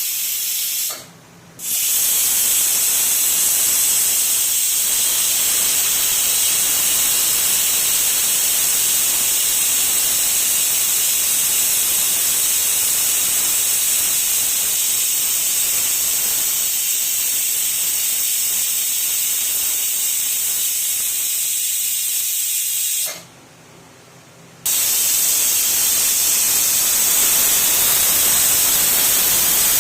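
Pressure cooker whistle venting steam in a steady, high-pitched hiss. It breaks off abruptly twice: briefly about a second in, and for about a second and a half some six seconds before the end.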